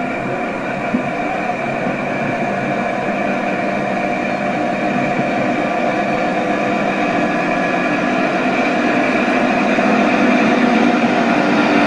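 HO-scale model diesel locomotive and its passenger coaches running along the track, a steady running noise that grows slowly louder as the train approaches.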